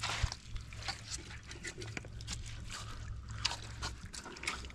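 Scattered small knocks and splashes of water as a live fish is dropped into a plastic bucket of water and the bucket is carried over wet stones, over a steady low hum.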